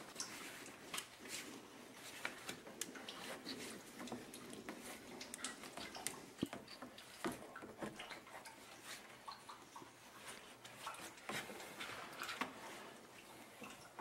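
Faint, scattered clicks and light knocks of hand work on a car's cooling system: a screwdriver loosening a hose clamp and the rubber upper radiator hose being worked off. The sharpest knocks come about six and a half and eleven seconds in.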